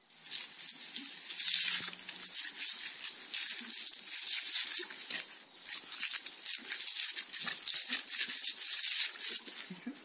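Water hissing from a garden hose spray gun, spattering irregularly as a smooth fox terrier snaps at the jet. The spray cuts off near the end.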